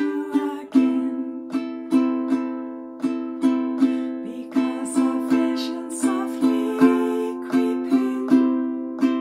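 Ukulele strummed slowly and evenly in a straight down-down-up pattern, moving through the A minor, G, F and C chords, with a strum stroke about every half second.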